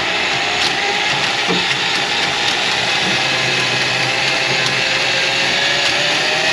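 Electric drain-cleaning machine running steadily, its motor pitch slowly rising, as it works on a plugged kitchen sink drain.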